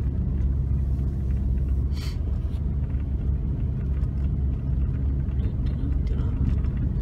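Car engine and tyre noise heard from inside the cabin while driving: a steady low rumble, with a brief hiss about two seconds in.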